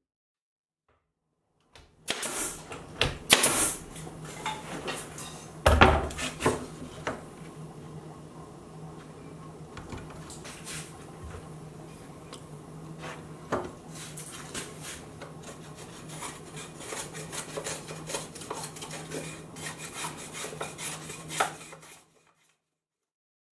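Cedar shingles and tools knocking and clattering as they are handled and set down on a plywood dog-house roof, with a steady low hum behind. The sound starts about two seconds in, has its sharpest knocks in the first few seconds, and stops shortly before the end.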